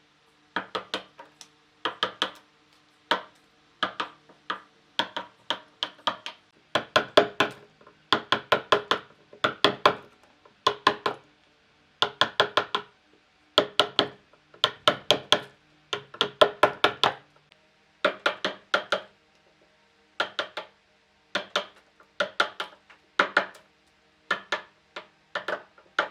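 Hand tools striking wood: sharp knocks in quick clusters of several blows, with short pauses between the clusters.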